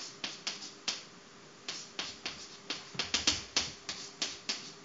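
Chalk writing on a blackboard: a quick, uneven run of sharp chalk taps against the board, some fifteen strokes or more, bunched most tightly about three seconds in.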